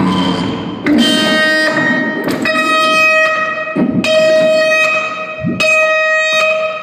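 Live noise music: after a couple of seconds of dense noise, a loud, buzzy, horn-like tone with many overtones is held in long blasts, broken twice by short low swooping sweeps.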